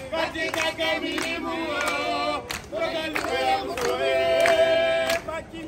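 A group of voices singing together in harmony, a call-and-response style with held notes, from a live vocal and drum troupe, with a few sharp percussive hits.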